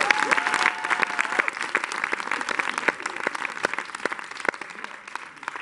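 Small audience applauding by hand, loud at first and gradually thinning out.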